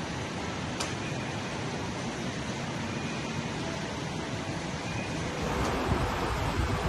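Steady rushing noise of floodwater flowing across a flooded warehouse floor. About five and a half seconds in it gives way to louder surf breaking on a rocky shore, with wind on the microphone.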